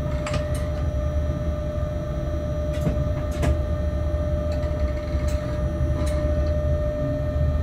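Locomotive moving slowly, heard inside its cab: a steady low rumble with a constant whine. Several sharp clicks and knocks come at irregular moments.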